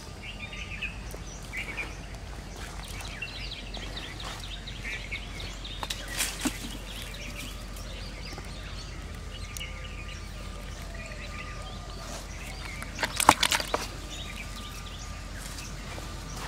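Outdoor ambience with small birds chirping intermittently. About two-thirds of the way through comes a short cluster of sharp clatters, the loudest sound here, fitting a caught fish knocking against a plastic basin.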